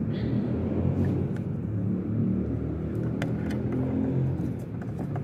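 Steady low rumble with a few light clicks about three seconds in.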